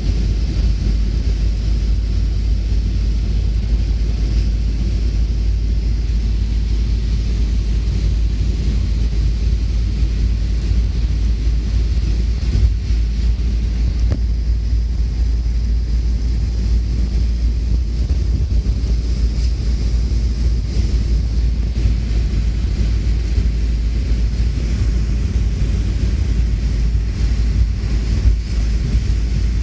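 Strong wind blowing across the microphone in a rainstorm: a loud, steady low rumble with a faint hiss above it.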